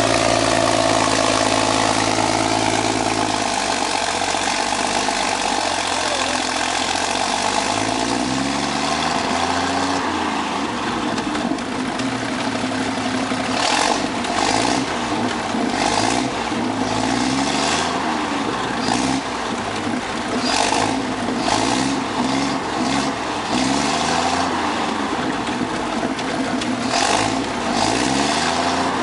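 Hall-Scott gasoline truck engine running steadily, then revved up and down over and over. From about halfway through, repeated sharp pops from the exhaust come with the revs as it backfires and shoots fire.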